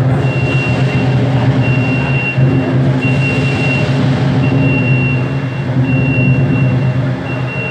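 Jungheinrich forklift's warning beeper sounding a steady series of high beeps, about one every second and a half, over the low steady hum of the forklift as it manoeuvres.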